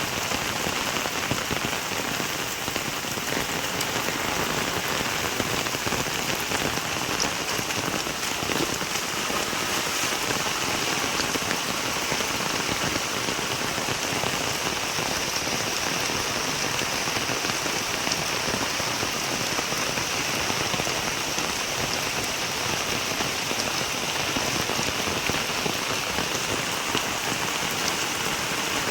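Steady rain falling and pattering on surfaces, with a dense patter of drops.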